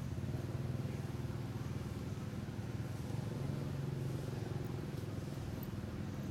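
Steady low hum of an engine running at an even pitch, a little louder about three and a half seconds in.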